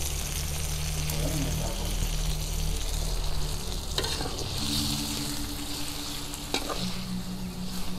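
Beef skin and vegetables sizzling in a steel wok while a metal spatula stir-fries them, with a few sharp scrapes and knocks of the spatula against the pan.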